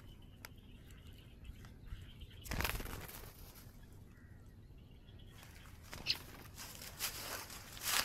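Rustling and brushing of grass as someone moves through a muddy paddy field. It comes in a burst about two and a half seconds in and again more densely from about five and a half seconds on, with a short high squeak near six seconds.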